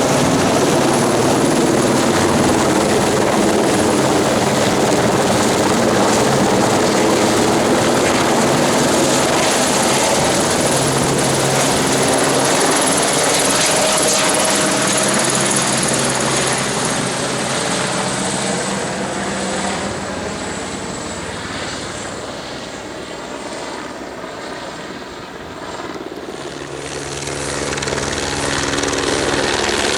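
Helicopter running, loud and steady. It fades noticeably about two-thirds of the way through, with its pitch shifting, then grows loud again near the end.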